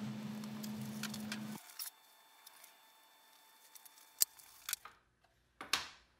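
Quiet hand-finishing sounds: a low hum with faint rubbing cuts off abruptly about a second and a half in, then a few sharp clicks and taps, as shellac sanding sealer is wiped onto a veneered panel with a pad.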